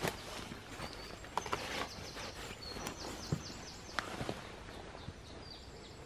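Spring woodland ambience: birds singing, with a quick run of short repeated notes in the middle, over light rustling and a few scattered sharp knocks.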